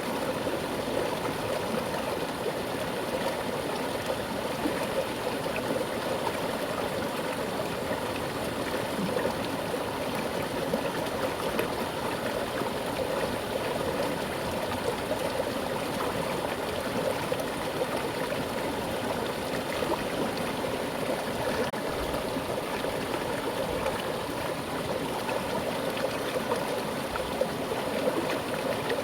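Mountain river flowing with a strong current, a steady rushing and gurgling of water over rocks.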